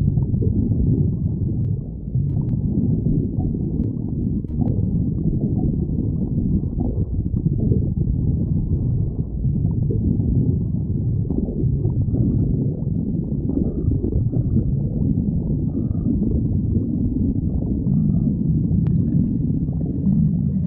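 Stomach growling: a continuous low, uneven rumbling and gurgling, with a few faint higher squeaks in the second half.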